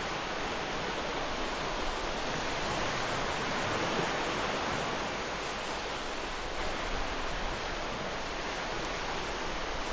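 Ocean waves breaking and washing up on a beach, a continuous even rush of surf.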